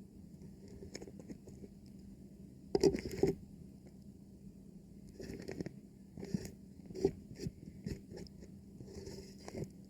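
Thin plastic covering a microphone being touched and rubbed, giving irregular crinkling and crackling bursts. The loudest cluster comes about three seconds in, with smaller bursts scattered through the rest.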